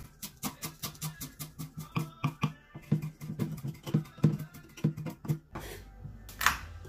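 Chef's knife rapidly chopping fresh herbs on a wooden cutting board, several sharp knocks a second, stopping about five and a half seconds in; one louder knock near the end.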